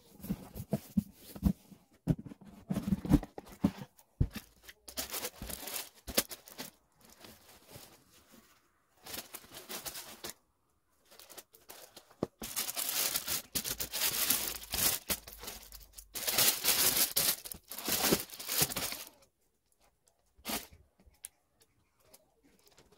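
A cardboard shoe box handled with a few knocks, then tissue paper wrapped around new boots rustling and crinkling as it is unfolded. It comes in stretches, loudest in two long bouts about halfway through, and goes faint near the end.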